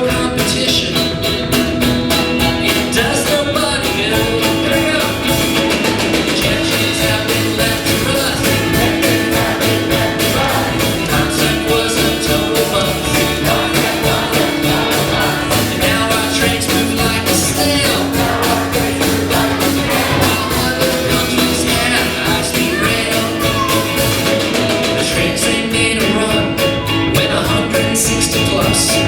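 A live rock band playing an upbeat song, with drums, bass, guitar, keyboard and violin.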